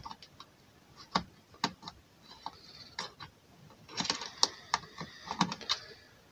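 Small clicks and scraping of an iFixit tool levering a CR2032 coin cell out of its motherboard holder. A few scattered clicks come first, then a busier run of scraping and clicking about four seconds in.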